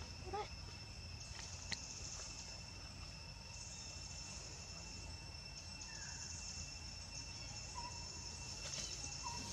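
Faint outdoor ambience of insects buzzing steadily at a high pitch, swelling and easing in stretches. A brief rising squeak comes about half a second in, and a single sharp click near two seconds.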